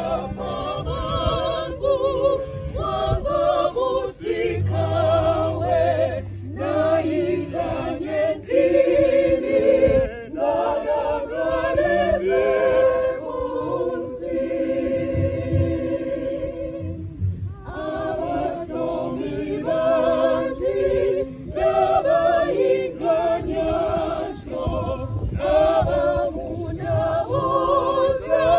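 Church choir of men's and women's voices singing the entrance hymn of a Catholic Mass in procession, in phrases with short breaks between them.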